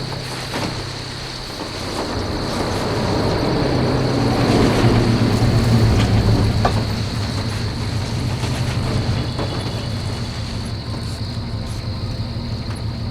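A motor vehicle's engine drawing near, getting louder to a peak about five seconds in, then settling into a steady low idle.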